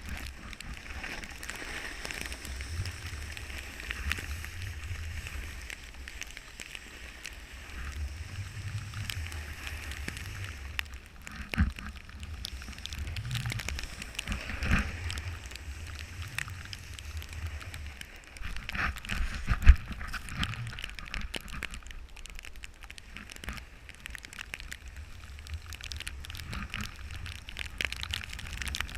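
A snowboard scraping and crackling over snow with wind buffeting the action camera's microphone, broken by three sharp knocks, the loudest about two-thirds of the way through.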